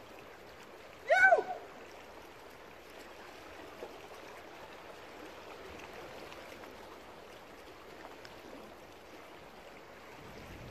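Sea water lapping and gurgling against the rocks of a calm cove, a steady wash. About a second in, one short high cry rises and falls.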